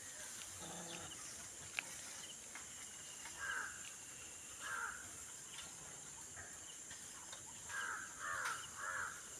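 Animal calls: a single low call about a second in, then short harsh calls, one at about three and a half seconds, one near five, and a quick run of three near the end. A steady high hiss runs underneath.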